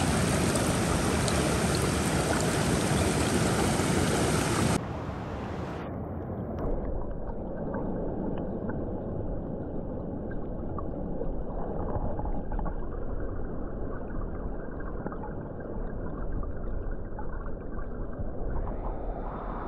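Rushing mountain creek water. About five seconds in, the sound is heard from underwater: it drops suddenly to a muffled low rumble with the high end gone.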